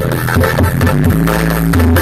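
Loud electronic dance music played through a large stacked sound system, with heavy sustained bass notes that shift in pitch over a steady beat.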